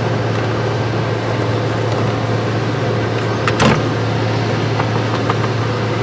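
Plastic steering-column shroud being handled and fitted around the ignition lock cylinder, with one sharp knock about three and a half seconds in and a few faint clicks after it, over a steady low hum.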